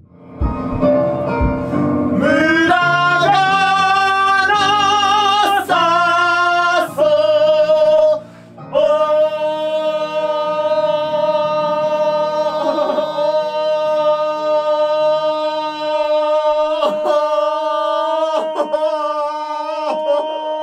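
Male voice singing a short phrase with vibrato, then holding one long note from about nine seconds in as a long-tone hold, over sustained backing chords that drop out a few seconds before the end.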